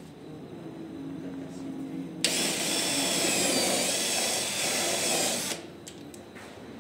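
Cordless drill boring a hole into the edge of a white laminated particleboard panel. The noise starts abruptly about two seconds in, runs loudly for about three seconds with a wavering whine on top, and stops suddenly. A faint steady hum comes before it.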